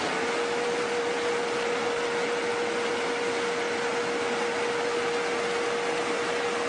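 Rice-field trenching machine running steadily: a dense, even mechanical noise with one steady whine.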